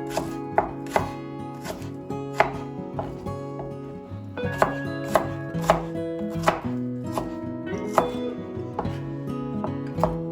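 Knife chopping on a cutting board in irregular strokes, some sharper and louder than others, over background guitar music.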